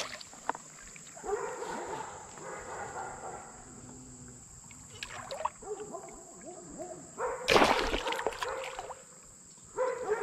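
Shallow creek water splashing in irregular bursts as a hooked pike thrashes while being held, the loudest splash about seven and a half seconds in. A steady high insect drone runs underneath.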